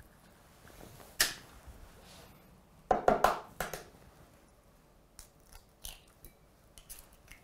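Eggshells being cracked and pulled apart by hand over a glass: short brittle cracks, crunches and small clicks, a single sharp one about a second in and a loud cluster of several about three seconds in, then a few fainter ticks.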